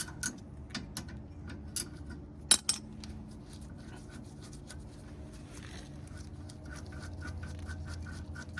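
Metal tools and brake caliper bolts being handled: scattered light clicks and scrapes, one sharper click about two and a half seconds in, then a run of light ticks at about four a second near the end, over a steady low hum.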